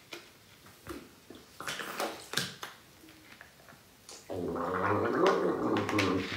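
A man gargling a mouthful of liquid for about two seconds near the end, after a few faint clicks from the bottle and his mouth.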